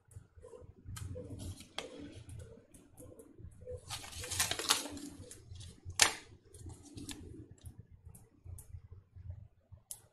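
Plastic-foil candy sachet crinkling and crackling as it is handled and turned over in the hands: scattered light crackles, a denser rustle about four seconds in, and one sharp crackle at about six seconds.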